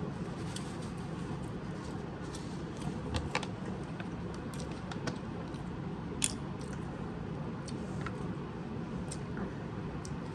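Small clicks and crinkles from handling a plastic water bottle and a crumpled foil sandwich wrapper, over a steady low background hum. The sharpest click comes about six seconds in, as the bottle is lifted.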